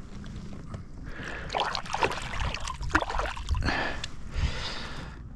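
Water splashing and sloshing in short, irregular bursts as a caught brook trout is released by hand back into the lake.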